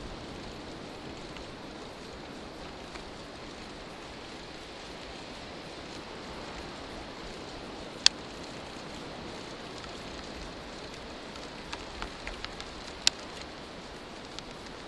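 Steady hiss of bicycle tyres rolling over hard-packed beach sand, mixed with wind. A few sharp clicks cut through it, one about 8 seconds in and several around 12 to 13 seconds.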